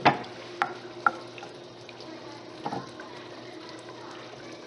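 Steak and diced green chiles sizzling in a skillet while a spoon stirs them, knocking against the pan three times in the first second and once more a little later.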